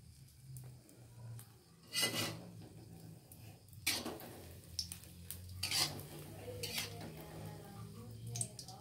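A metal spatula scrapes and knocks against a wok while an egg-and-cabbage omelette fries, in several separate strokes. The loudest come about two and four seconds in.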